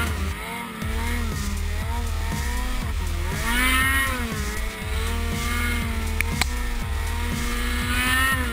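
Ski-Doo XP E-TEC snowmobile's two-stroke engine revving up and down as the sled is ridden through deep snow. The engine pitch climbs and drops in long sweeps, peaking about four seconds in and again near the end, over a steady low rumble, with one sharp click partway through.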